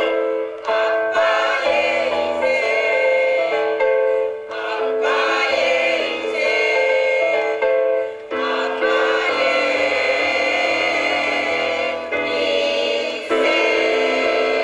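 Mixed choir of men and women singing in harmony, holding long chords in phrases a few seconds long, with low sustained notes beneath.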